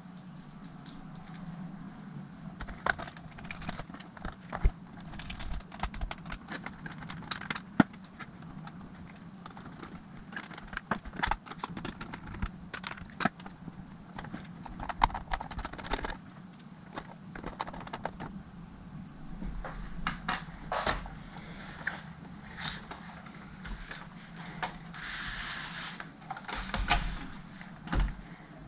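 Irregular clicks, taps and knocks of small plastic and metal laptop parts being handled and fitted together during reassembly, over a steady low hum.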